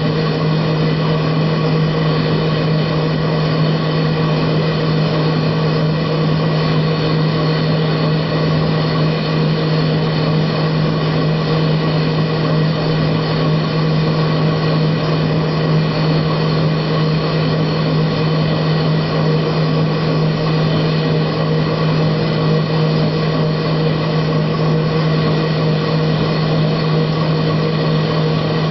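Metal lathe taking a continuous turning cut: a steady, unchanging low hum from the machine under an even rush of cutting noise as long curling chips peel off the workpiece.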